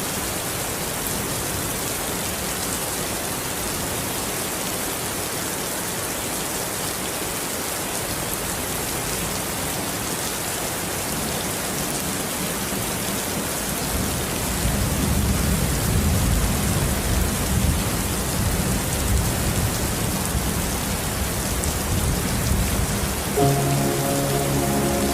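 Steady heavy rain falling, with low thunder rumbling through the second half. Soft sustained music chords come in near the end.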